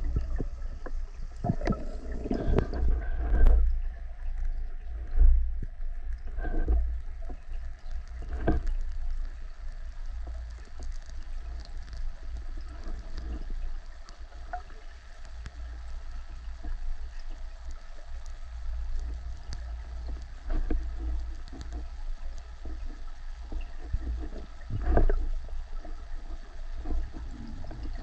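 Underwater sound picked up through a camera housing: a steady low rumble of moving water, with scattered knocks and clicks as the diver moves and handles the speargun, a few of them louder about two to four seconds in, around eight seconds and near the end.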